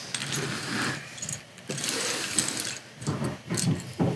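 Loose plastic LEGO pieces rattling and clicking as hands rummage and sort through them, with a few sharp clicks in the second half.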